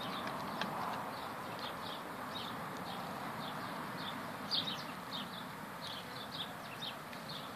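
Golden retriever gnawing and chewing a whole raw rabbit with the fur still on. Birds chirp repeatedly in the background, a few chirps a second, with a louder cluster about halfway through.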